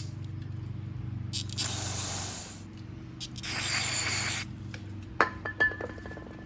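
Aerosol cleaner sprayed into a lawn mower carburetor in two short hissing blasts, followed about five seconds in by a few light metallic clinks with a brief ring.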